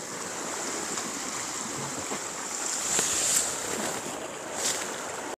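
Sea waves washing against the shore rocks: a steady rushing, with brief louder swells about three seconds in and again near the end.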